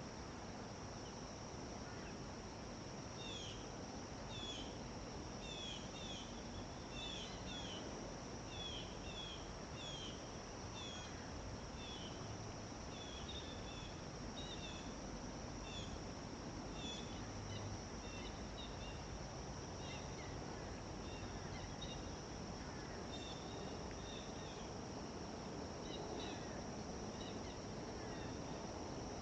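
Outdoor nature ambience: small birds give short, high chirps again and again, thickest through the first half, over a steady high-pitched insect drone and a hiss of background noise.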